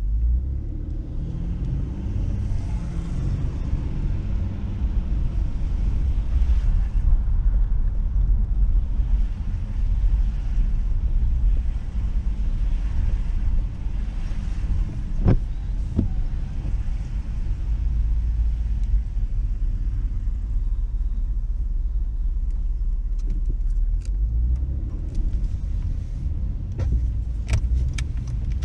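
Steady low rumble and tyre noise of a car driving on wet pavement, heard from inside the car. Two sharp knocks come about halfway through and a few short clicks near the end.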